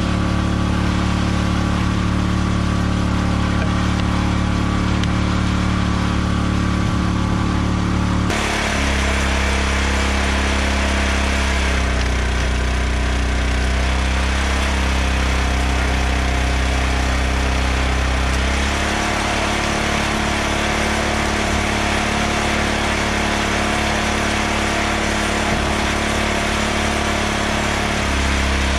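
Small gasoline engine of a hydraulic log splitter running steadily. Its note changes abruptly about eight seconds in, then shifts a few more times as the hydraulic pump takes and sheds load while splitting rounds.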